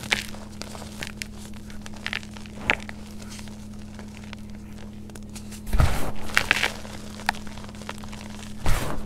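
Hands squeezing and crumbling soft clumpy powder: soft crunches and crackles as the clumps break, with a heavier thump about six seconds in and another near the end.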